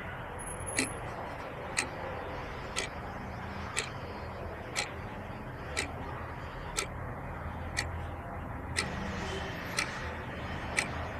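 A clock ticking steadily, one tick a second, over a low background hum.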